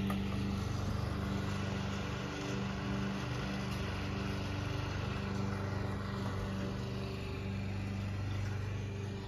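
A machine hum held at one unchanging pitch and level, like a motor or small engine running.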